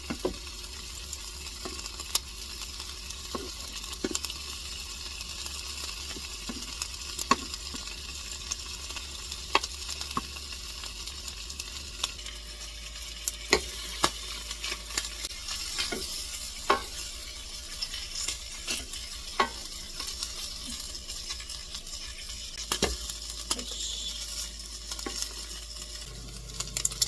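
Food sizzling in a frying pan, a steady hiss, with irregular sharp clicks and taps of a utensil against the pan.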